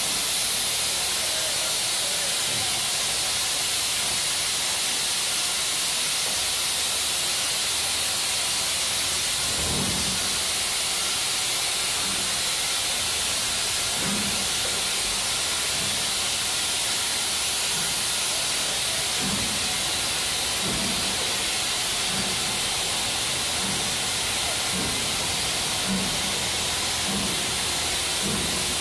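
Steam locomotive letting off a steady, loud hiss of steam, then starting away: slow exhaust chuffs begin about ten seconds in and gradually come quicker.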